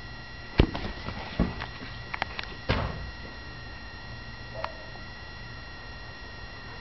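Two German shepherds playing with a soccer ball on grass: a few sharp thumps and knocks in the first three seconds as they scramble after the ball, then quieter. A faint steady high tone runs underneath.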